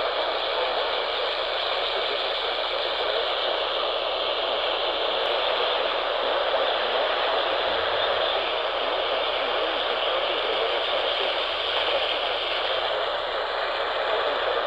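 Steady hiss of AM radio static from a receiver tuned to an AM broadcast, the noise narrowed to the radio's band with no clear speech coming through.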